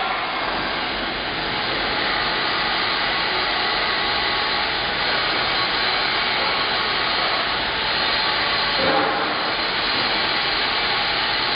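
CNC plasma torch cutting metal plate: a steady, loud hiss of the cutting arc and its air jet, swelling briefly about nine seconds in.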